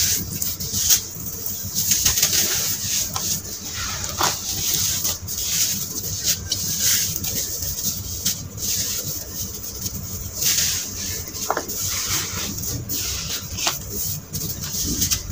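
Hands squeezing and kneading damp, crumbled red sand in a plastic tub: continuous gritty crunching and squishing, with frequent small crackles.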